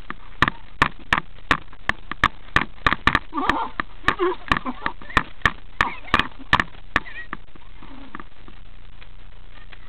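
A quick, uneven run of sharp knocks and clicks, about three a second, stopping about seven seconds in, with brief children's and adults' voices between them.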